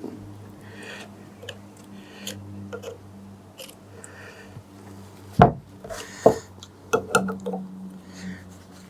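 Screwdriver and pliers levering a steel circlip off a motorcycle fork part: light metal scraping, then several sharp metallic clicks about five to seven and a half seconds in as the clip works loose.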